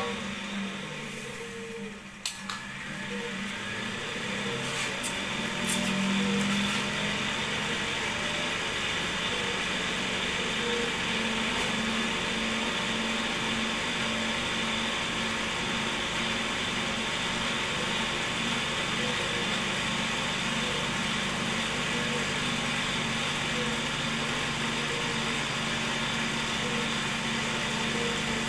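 Cotton candy machine's DC motor spinning the spinner head, running steadily. The sound drops about two seconds in and builds back up to a steady level over the next few seconds.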